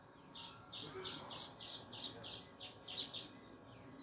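Small songbird chirping: a quick run of about a dozen short, high chirps, about three to four a second, that stops a little after three seconds in.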